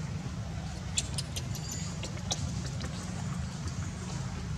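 Dry leaf litter crackling in a few short clicks as a baby macaque wriggles on it, over a steady low rumble.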